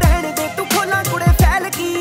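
Instrumental background music with a heavy beat: deep bass-drum hits that drop in pitch, a few each second, under a melody line.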